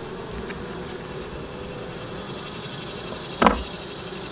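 Honeybees buzzing steadily around an opened hive. About three and a half seconds in comes one short, louder swoop as a bee flies close past the microphone.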